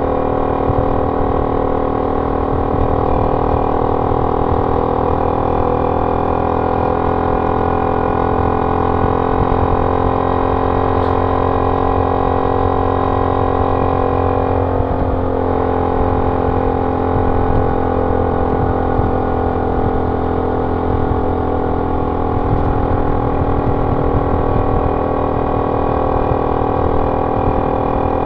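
Honda C70's small single-cylinder four-stroke engine running through an aftermarket banana-style exhaust while riding, a steady droning exhaust note. The note breaks and dips briefly about halfway through, then settles back.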